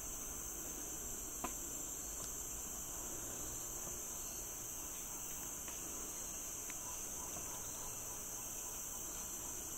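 Steady high-pitched chorus of rainforest insects, with a few faint clicks, the strongest about one and a half seconds in.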